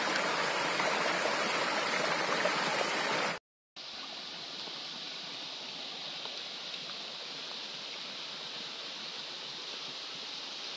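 Small forest waterfall splashing over rocks into a shallow pool, a steady rush of water. About three seconds in the sound cuts out for a moment and returns quieter.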